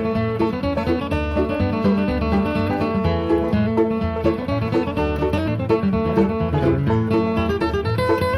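Background music: plucked banjo and guitar playing a bluegrass-style tune at a steady, quick pulse.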